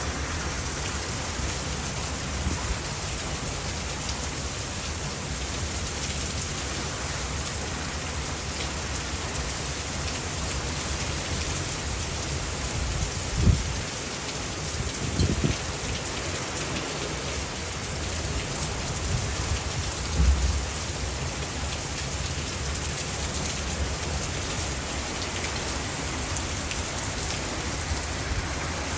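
Heavy rain pouring steadily in a thunderstorm with strong gusty wind, with three brief low rumbles, two close together near the middle and one about twenty seconds in.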